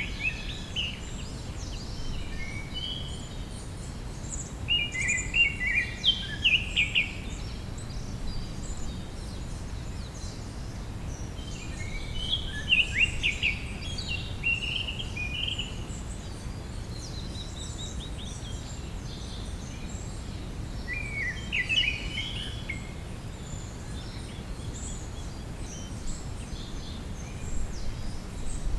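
Wild songbirds singing in a spring forest: short bursts of quick chirping phrases about five, twelve and twenty-one seconds in, over a steady low background rumble.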